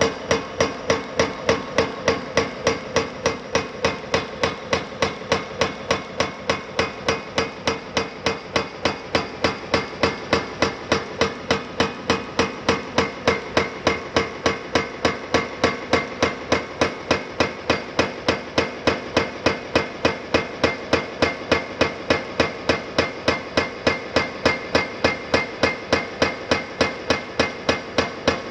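Hydraulic breaker on a CAT 330F excavator hammering concrete: a steady, rapid train of hard metallic blows, several a second, without a break.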